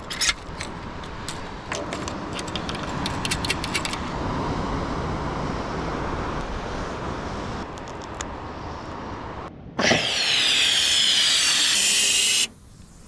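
Light clicks and rattles of fishing gear being handled over a steady background rush, then about ten seconds in a loud hiss of gas filling a large latex fishing balloon from a gas bottle, cutting off abruptly after about two and a half seconds.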